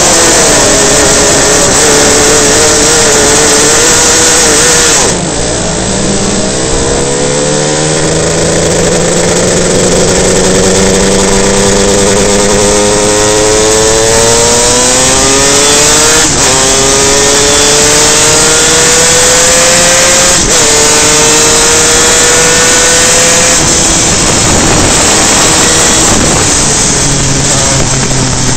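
Superkart two-stroke engine heard onboard, accelerating hard through the gears: its pitch climbs steadily, drops sharply at an upshift about 16 seconds in and again about four seconds later, then climbs again each time. A heavy rush of wind and noise runs under it.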